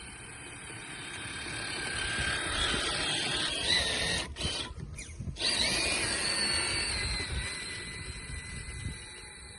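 Traxxas TRX4 Sport RC truck's electric motor and gear drive whining, the pitch sliding with the throttle. It grows louder, cuts out twice briefly around the middle, then runs again and fades.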